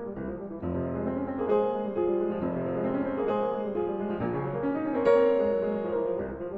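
Piano music, with notes and chords struck one after another.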